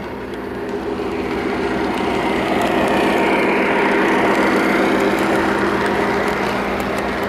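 Lionel O-scale BNSF diesel locomotive running past on three-rail track, a steady mechanical hum and rumble of motor and wheels that grows louder and peaks about four seconds in as the locomotive goes by.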